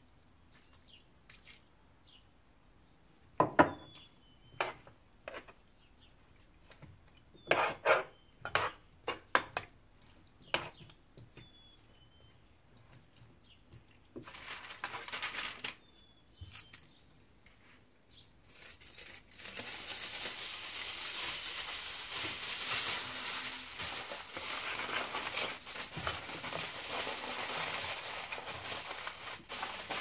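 Several sharp clinks and knocks of kitchenware around a metal roasting pan, then a brief rustle of baking paper. Near the end comes a long, continuous crinkling as aluminium foil is pulled over the pan and pressed around its rim.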